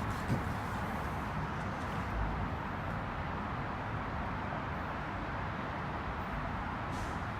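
Steady outdoor background noise, an even hiss-like rush with no clear engine note, and one short click about a third of a second in.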